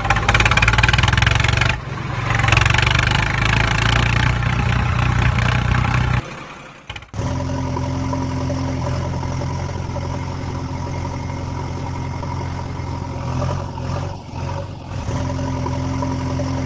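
Heavy-vehicle engine sound running steadily, breaking off about six seconds in; a second engine sound comes in a second later and runs steadily with a low hum.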